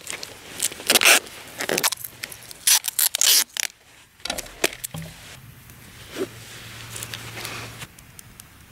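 Masking tape ripped off the roll in several short rasping pulls and wound around a bundle of twigs, followed by softer scratching of a pen writing on the tape.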